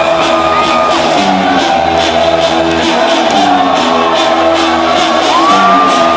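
Loud electro house music from a live DJ set played over a club sound system, with held synth chords and a lead line that slides up in pitch near the end. The crowd can be heard shouting faintly under it.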